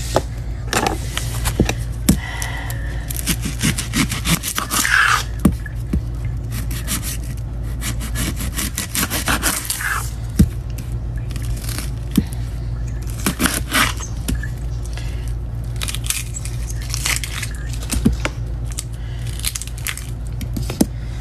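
Kitchen knife peeling and cutting an onion by hand: irregular scraping with sharp clicks and taps of the knife and onion against a wooden table, over a steady low hum.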